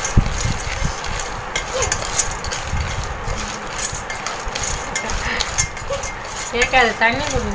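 Peanuts being dry-roasted in a stainless steel pan and stirred with a wooden spatula: the nuts rattle and scrape against the metal in a steady stream of small clicks. A voice speaks briefly near the end.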